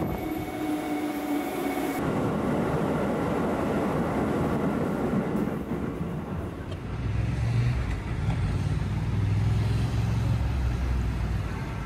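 Electric train: a motor whine falling in pitch as it slows, cut off sharply about two seconds in, then the even rumble of the train running. From about seven seconds in, road traffic with a deep engine rumble.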